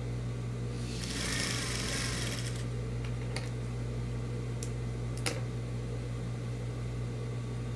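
Sewing machine with a steady motor hum as a patchwork rug is fed and turned under the presser foot. A burst of fabric rustling comes about a second in, and a few light clicks follow in the middle.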